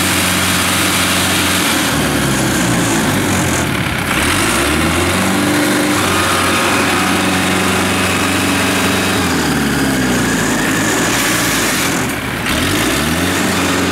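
Rice harvester engine running hard, revving up and down several times as the machine struggles in deep mud.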